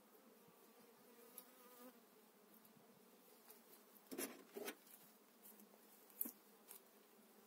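Faint buzzing of honeybees around an open hive, a thin steady hum that is clearest in the first two seconds. A few soft knocks or rustles come about four and six seconds in.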